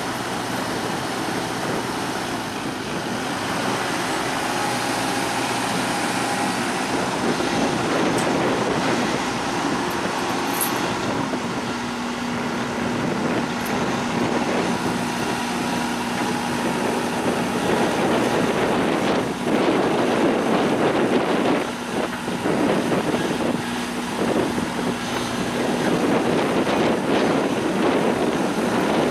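Heavy diesel machinery running steadily at work, with a steady hum that comes in and out in the second half.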